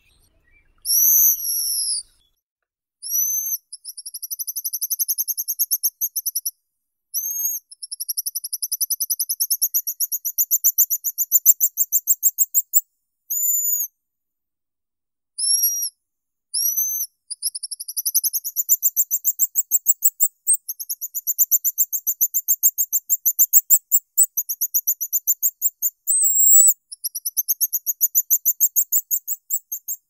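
Pigeon guillemot calling in thin, high whistles. There are short single down-slurred notes and long rapid trills that rise slightly in pitch, each trill running for about three to five seconds.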